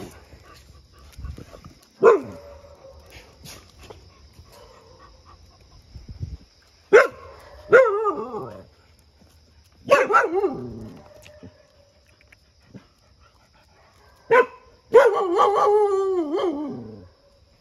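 Dogs barking, several calls in a row, each starting sharply and sliding down in pitch: one about two seconds in, three more close together around the middle, and a longer, wavering, falling call near the end.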